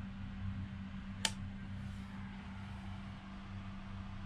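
Steady low hum of a train sleeper cabin, with a single sharp click about a second in.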